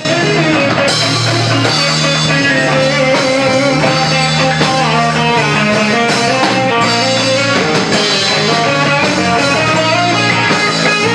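Live rock band playing: a solid-body electric guitar picking a melodic line over a drum kit, at a steady level.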